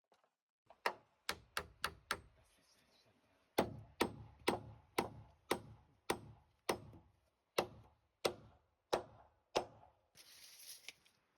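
Hammer blows driving nails into the timber roof framing: a quick run of strikes, then steady blows about two a second. A short hissing noise comes near the end.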